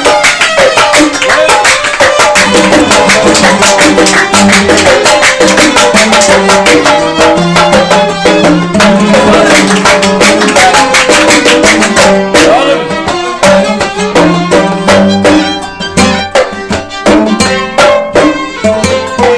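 Instrumental passage of Gulf folk music: violins and qanun playing the melody over a dense hand-drum rhythm. About twelve seconds in, the bright top end thins out and the drumming becomes sparser and more accented.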